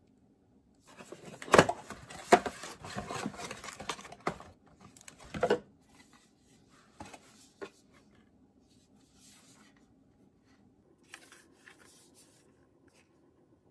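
Rustling and crinkling of packaging being handled and unpacked, with a few sharp clacks in the first few seconds, then softer, occasional handling noise.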